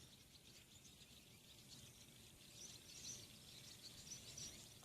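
Faint outdoor quiet with distant small birds chirping, the high chirps coming in clusters, thickest in the second half.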